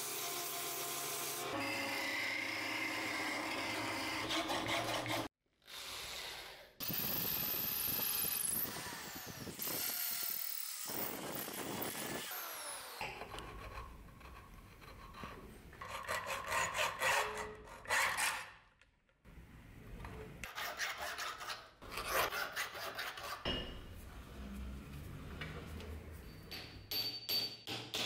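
A small wood lathe running with sandpaper held against a spinning beech handle: a steady motor hum under the rasp of sanding. After a cut, rhythmic rasping strokes of a hand tool come in short spurts.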